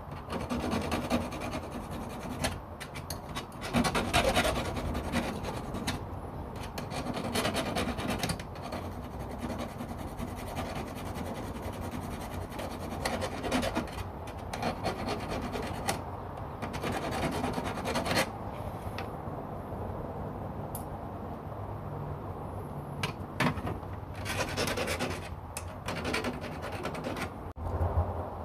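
Small metal hacksaw rasping and scraping against a fire pit's metal grill in uneven strokes, with louder stretches now and then.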